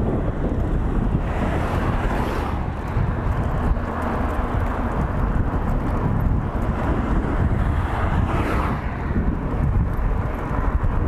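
Wind rushing over the microphone and the tyre rumble of a mountain bike riding over cracked, patched asphalt, with brief swells about two and eight seconds in as oncoming cars pass.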